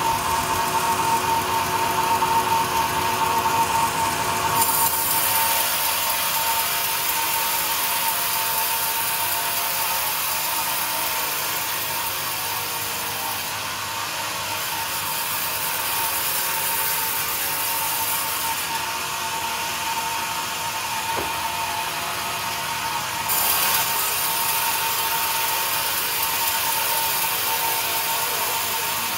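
Band sawmill cutting a teak log: a steady machine whine under a dense, high hiss of the blade in the hard wood. The hiss starts a few seconds in and fades twice partway through before coming back.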